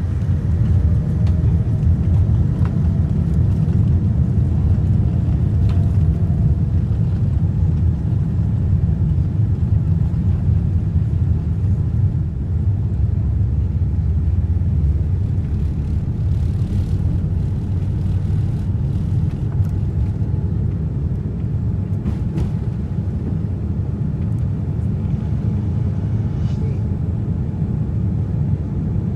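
Boeing 787-9 on its takeoff roll, heard from inside the cabin: its GEnx engines at takeoff thrust and the airframe and wheels rumbling down the runway. A faint rising whine as the engines spool up comes at the start, with a few knocks midway. The rumble eases somewhat toward the end as the aircraft lifts off.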